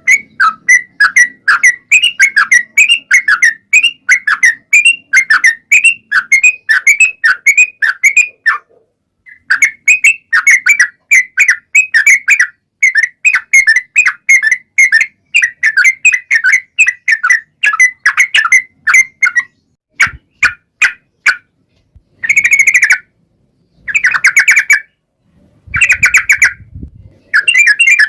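Yellow-vented bulbul (trucukan) singing a long, rapid run of repeated chattering notes with one short pause about a third of the way in. Near the end the song breaks into a few separate short bursts.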